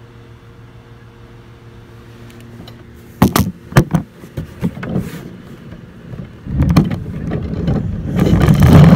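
A few sharp knocks, then a backyard roller coaster cart's wheels rumbling along the track, starting about two-thirds of the way in and growing louder toward the end.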